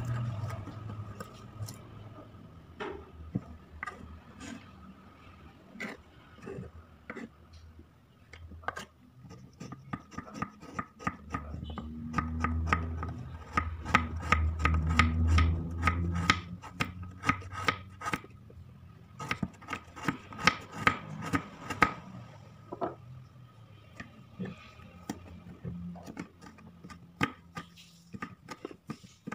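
Kitchen knife slicing spring onion and garlic on a wooden cutting board: runs of quick blade taps on the board, fastest and loudest in the middle stretch.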